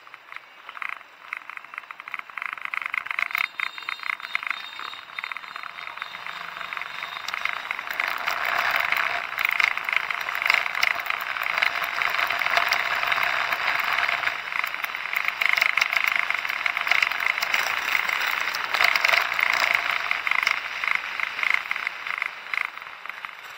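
Rushing wind and road noise of a moving motorbike, picked up by an action camera riding on the bike, with constant fine rattling clicks; it grows louder about a third of the way in and eases off near the end.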